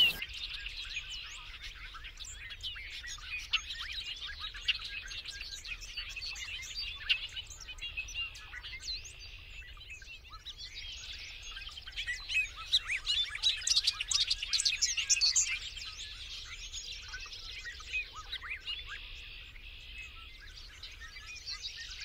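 Bobolinks singing in a hayfield: a chorus of quick, jumbled high notes, thickest a little past the middle.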